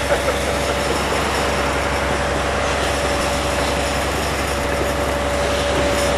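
Concrete pump running steadily, a constant engine drone with a steady whine, as concrete is pumped through the hose into the foam formwork wall.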